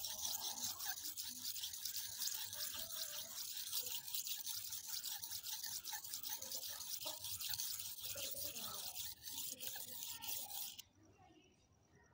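A steel knife blade scraped back and forth across a wet red sharpening stone in quick, steady strokes, a rhythmic hiss that stops suddenly about eleven seconds in.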